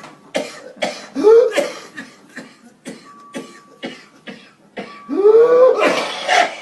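A person coughing repeatedly: a run of short, sharp coughs, with a longer voiced sound that rises and falls in pitch about five seconds in.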